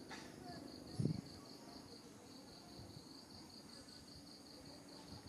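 Insect chirping outdoors: a steady high pulsing of about four chirps a second throughout, over low rustling, with one short, louder low thump about a second in.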